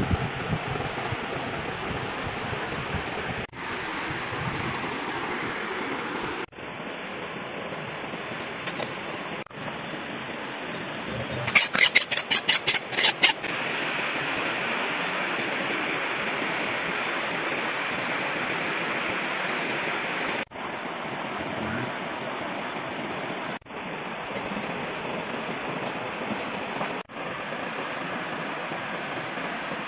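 Steady rush of a flowing river. About halfway through comes a quick run of about nine sharp knocks.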